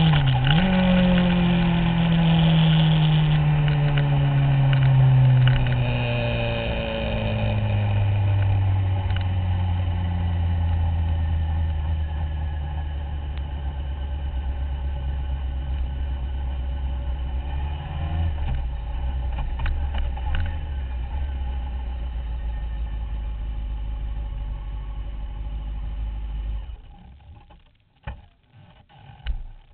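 Honda CBR600F4i inline-four engine slowing down, its revs falling over the first several seconds and then running steadily at low revs. The engine sound stops abruptly near the end.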